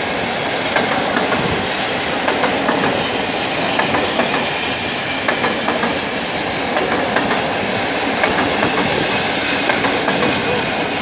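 Loaded container flat wagons of a freight train rolling past: a steady rumble of steel wheels on rail, with repeated clicks of the wheels running over the track.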